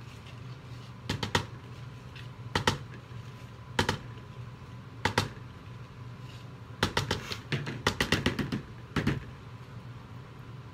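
Sharp plastic taps and knocks of a spatula and pitcher as thick soap batter is scraped out into a mold: single knocks about every second and a half, then a quick run of taps about seven to nine seconds in.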